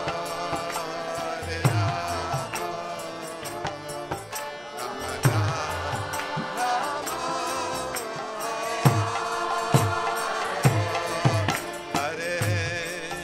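Kirtan music: voices chanting a mantra to a melody, over low drum strokes and small hand cymbals.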